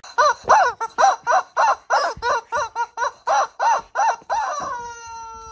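Rubber chicken squeaky toy squawking over and over as a pug bites and squeezes it, about three or four squawks a second, each rising then falling in pitch. It ends on one long, drawn-out squawk.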